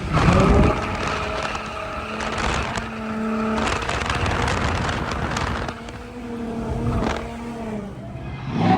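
Drift car engine held high in the revs while its tyres squeal and skid; the revs climb sharply right at the start and drop back a couple of times later.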